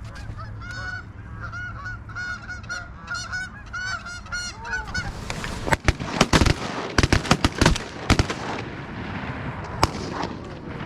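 A flock of geese honking, many calls overlapping. About halfway through, a quick run of loud sharp bangs breaks in, with one more near the end.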